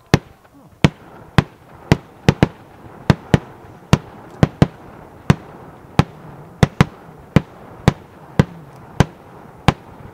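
A multi-shot fireworks cake firing shot after shot: about twenty sharp bangs, roughly two a second and some in quick pairs, over a faint hiss.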